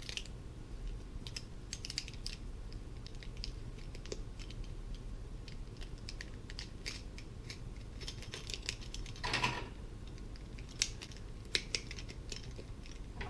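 Light, irregular clicks and clinks of large plastic and shiny demonstration rings being handled and linked together by hand into a cable chain. A brief louder rustle comes about nine and a half seconds in.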